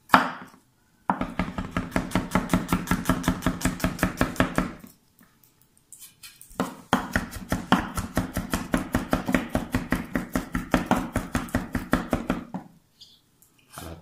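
A chef's knife rapidly mincing garlic on a wooden cutting board, knocking against the board about six times a second. The chopping comes in two long runs with a short pause between them.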